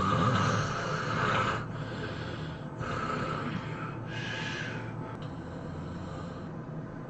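A person snoring in sleep. A loud snore lasts about a second and a half, then two shorter, quieter snoring breaths follow about three and four seconds in, the last one higher and hissier.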